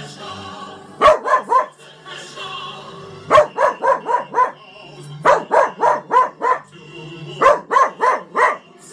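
A small dog barking along to a TV commercial jingle, in four quick bursts of four or five barks about two seconds apart, with the jingle's music playing underneath.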